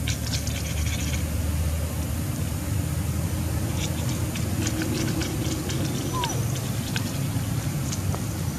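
Steady low background rumble, with scattered light clicks and rustles of dry leaf litter as a small monkey moves over it, and one brief high squeak that falls in pitch about six seconds in.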